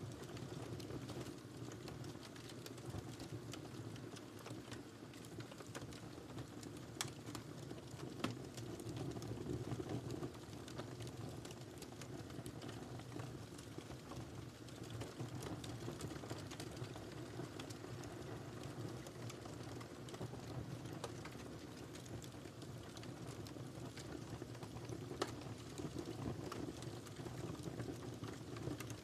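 Wood fire burning in a fireplace: a steady low rumble of flames with scattered sharp crackles and pops, a few louder snaps standing out.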